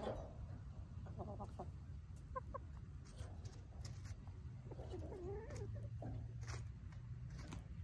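Hens clucking softly: a few short clucks about a second in and again near 2.5 s, then a longer, low call that wavers up and down about five seconds in.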